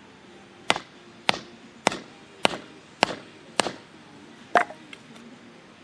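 Firewood being chopped: seven sharp chopping strikes, about one every 0.6 seconds, with a short pause before the last.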